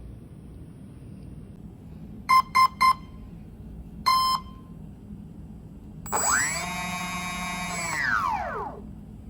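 Brushless RC airplane motor and its electronic speed controller: three short beeps and then one longer beep as the ESC arms, then the motor spins up to a steady high whine, holds for about two seconds, and winds down.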